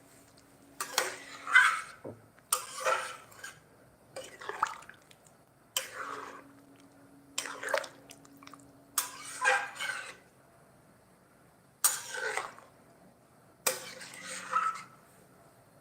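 Water splashing in about eight short bursts, a second or so apart, with quieter gaps between.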